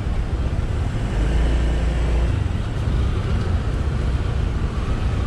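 Low, steady rumble of idling engines in stopped city traffic, with the low hum swelling for about a second near the start.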